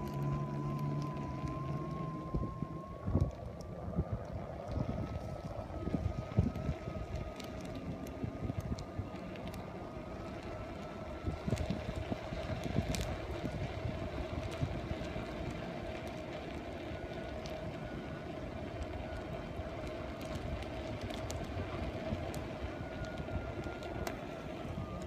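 Airwheel electric self-balancing unicycle riding on asphalt: a steady high whine from the hub motor, its pitch drifting slightly up and down with speed, over tyre rumble and wind buffeting the microphone. A few brief knocks come through.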